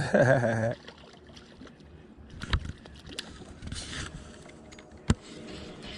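Knocks and handling sounds in a small fishing boat, with two sharp knocks, one about two and a half seconds in and a louder one about five seconds in.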